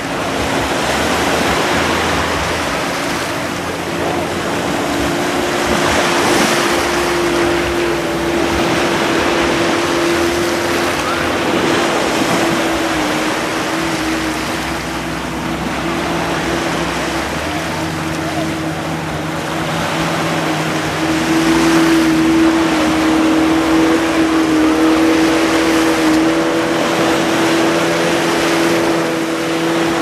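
Small waves breaking and washing up the sand, over the steady drone of speedboat engines out on the water, its pitch drifting slightly up and down.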